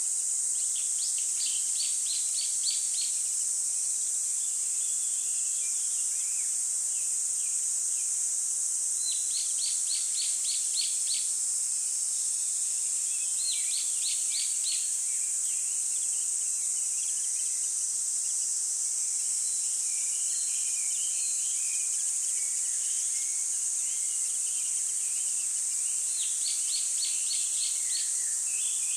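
Outdoor nature ambience: small birds singing, with four bursts of rapid, evenly repeated high notes and scattered chirps between them, over a steady high-pitched hiss.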